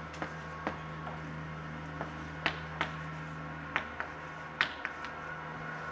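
Chalk tapping against a chalkboard while writing: a series of about seven sharp, irregularly spaced taps, over a steady faint room hum.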